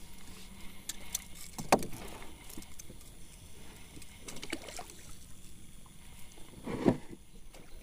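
A few sharp knocks and clicks against a narrow wooden boat, with small tackle handled at the gunwale; the loudest knock comes near the end.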